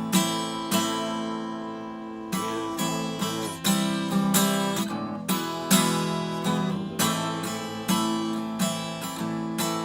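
Acoustic guitar strumming chords, each strum left to ring, roughly one or two strums a second.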